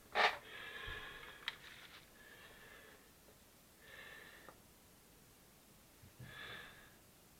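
Plastic laptop bottom cover being pried off the chassis: a sharp snap as a latch lets go near the start, a smaller click, then several short squeaking scrapes of plastic on plastic.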